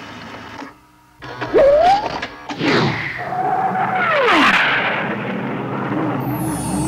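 Cartoon sound effects: a sudden hit about a second in, then whistling pitch glides that rise and fall, a whoosh, and a wavering warble near the end.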